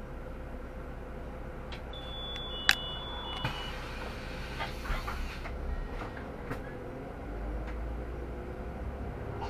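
Interior of a Solaris Urbino 18 articulated city bus: a steady low drivetrain rumble. About two seconds in comes a short high electronic beep with a sharp click, followed by a brief hiss of compressed air. The rumble swells near the end.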